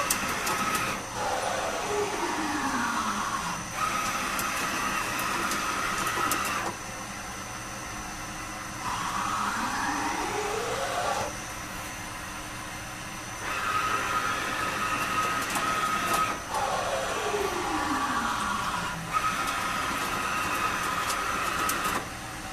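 CNC lathe running through a machining cycle: the spindle drive whines down in pitch as it slows, about a second in and again around 16 s, and whines up as it speeds up around 9 s. Between these are stretches of steady high whine and machine running noise, broken by quieter pauses.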